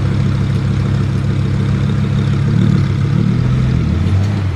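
Stage 2-tuned BMW M5 F90's twin-turbo V8 and exhaust running at low revs, the note steady at first, then rising and falling slightly in the second half.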